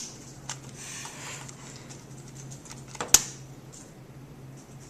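A lighter being clicked to try to ignite the gas: a few sharp clicks, the loudest about three seconds in, with a faint hiss about a second in, over a low steady hum. No pop follows, so the gas has not ignited.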